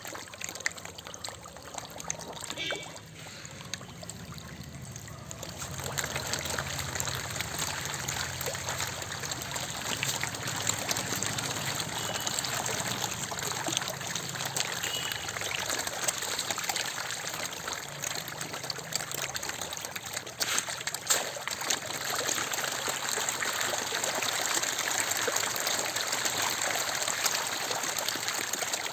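Running water trickling steadily, growing a little louder about six seconds in.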